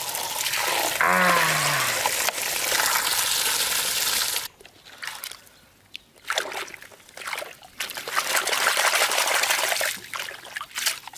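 A stream of water pouring and splashing into a shallow muddy puddle for about four and a half seconds, then stopping abruptly. After that, water sloshes and splashes in short irregular spells as a hand works in the puddle.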